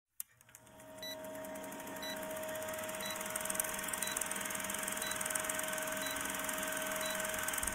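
Old-film countdown sound effect: the steady whir and rapid clatter of a film projector with a hum underneath, and a short high beep once a second.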